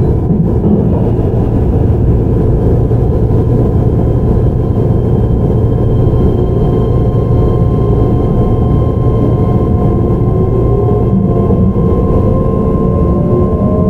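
Keihan 13000 series electric train running, heard from on board: steady rumble of wheels on rail with a constant high tone from its Toyo IGBT VVVF inverter. From about eleven seconds in, a set of whines rises in pitch as the traction motors work under power.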